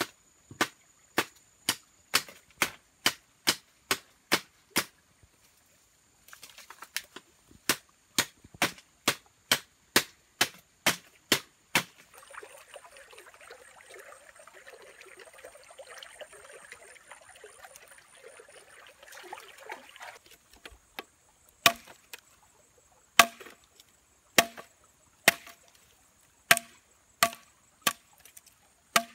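A blade chopping bamboo in steady, sharp strokes, about two a second. In the middle the chopping gives way to several seconds of running water from a stream, then the strokes return with a short hollow ring to each hit.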